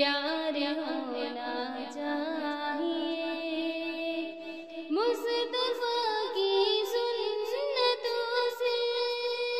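A naat, a devotional Islamic song in praise of the Prophet, sung solo by a high voice in long ornamented lines. About five seconds in, the voice leaps to a higher, louder phrase and holds it with wavering ornaments.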